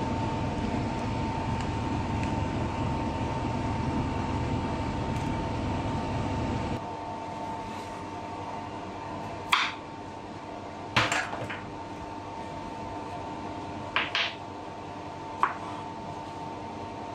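Kitchenware clinking: about six short, sharp knocks and clinks in the second half, over a steady background hum with a held tone that drops in level about seven seconds in.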